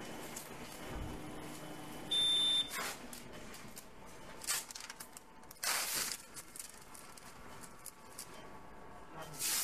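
A single high-pitched electronic beep lasting about half a second, about two seconds in, from operating-room equipment. Short rustling noises follow around six seconds and near the end.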